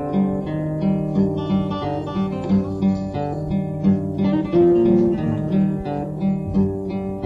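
Acoustic guitar playing an instrumental piece: a steady, rhythmic run of plucked notes.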